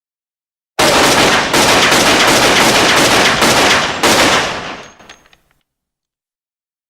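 9mm Glock semi-automatic pistol firing a rapid string of shots, about two a second, starting about a second in. The reverberation rings between shots and dies away over the last half-second after the final shot.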